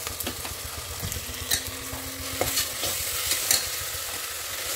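Onions, tomatoes and green chillies sizzling in hot oil in a pressure cooker pot as a metal spoon stirs and scrapes the bottom, with scattered clicks of the spoon against the pot. The ginger-garlic paste has just gone in with them.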